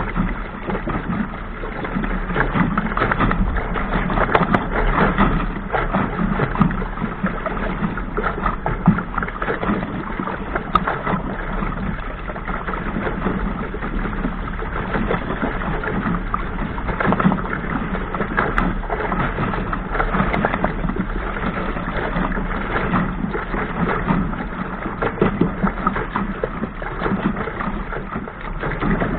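Sailing dinghy's hull pushing through choppy waves: a steady rush of water with constant irregular splashes and slaps against the bow.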